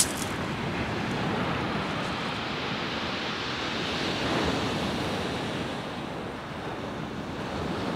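Rough surf breaking and washing over a shingle beach, swelling and easing, with wind buffeting the microphone. A single sharp click right at the start.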